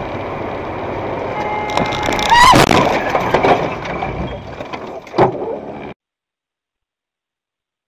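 Dashcam audio of a car crash: road and engine noise inside the car, a brief steady tone, a short rising squeal, then a loud collision impact about two and a half seconds in and a second bang about five seconds in. The sound cuts off abruptly about six seconds in.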